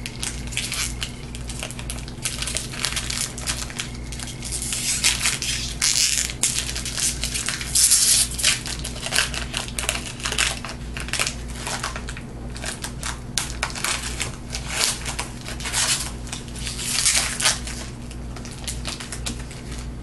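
The wrapper of a jumbo trading-card pack being torn open and crinkled in the hands: irregular crackling and crumpling throughout, loudest about eight seconds in and again near the end, over a steady low electrical hum.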